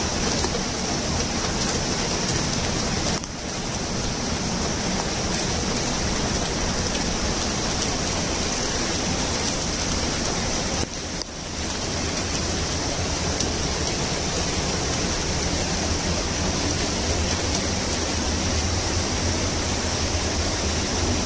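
Heavy monsoon rain and a swollen floodwater channel rushing past: a dense, steady hiss of rain and running water, dipping briefly twice.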